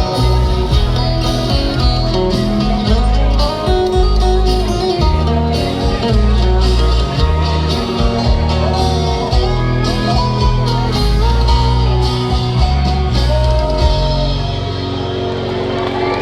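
Live concert music, an instrumental passage with guitars over a heavy bass line, recorded from the audience. The low bass drops out near the end as the song winds down.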